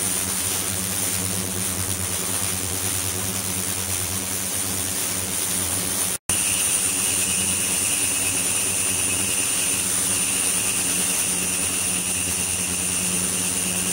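Water pouring from a stainless steel chute into a water tank, a steady rushing hiss, over a low hum and a steady high whine from the running ultrasonic flow equipment. The sound cuts out for an instant about six seconds in, and after that a second, lower whine joins in.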